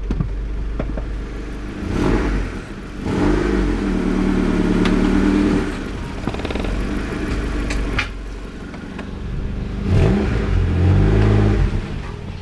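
Honda Civic EK's four-cylinder engine idling and revving up twice, about two seconds in and again near ten seconds, each rise held for a moment as the car is driven forward and back to check whether its brakes have seized from standing.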